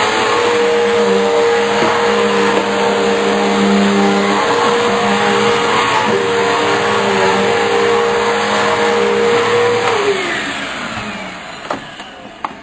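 Vacuum cleaner motor running steadily with a steady hum, then switched off about ten seconds in and winding down with a falling whine, followed by a couple of light knocks.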